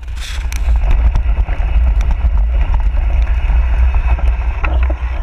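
Mountain bike riding down a steep dirt trail, heard through a helmet camera: heavy wind rumble on the microphone over the rough rush of tyres on dirt and rock, with many small clicks and rattles from the bike.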